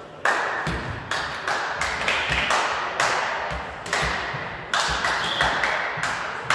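Rhythmic sharp claps, about two a second, echoing in a large sports hall.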